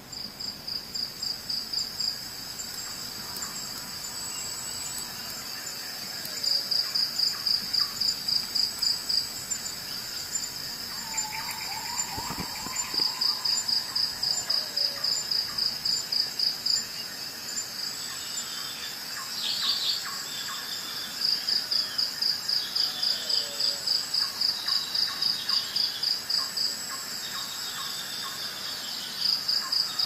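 Nature ambience of a cricket chirping in repeated trains of rapid high pulses, about four a second, with short pauses between trains, and occasional short falling bird calls behind it.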